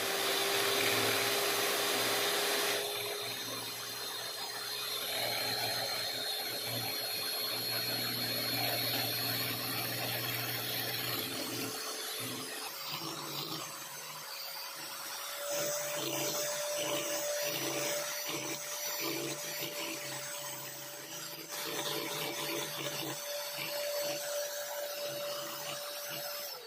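Electric hand mixer beating egg whites in a glass bowl, its motor whirring steadily at low speed. About halfway through the pitch steps up as the speed is raised, and it steps up again a few seconds later, while the whites whip to a foam for meringue.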